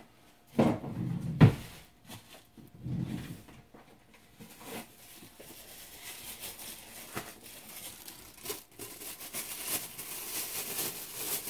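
Thin clear plastic crinkling and rustling as a disposable plastic glove is handled and pulled on, growing louder in the last few seconds. A few dull knocks come before it, the loudest about a second and a half in.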